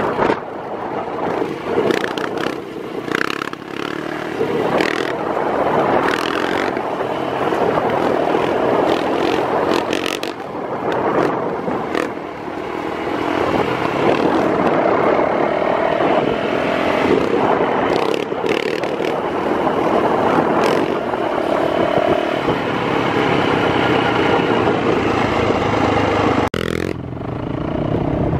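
Four-stroke single-cylinder engines of a Yamaha YZ450F dirt bike and a Honda 400EX quad running and revving as they ride, with pitch rising and falling through the throttle. The sound breaks off sharply about two seconds before the end and comes back changed.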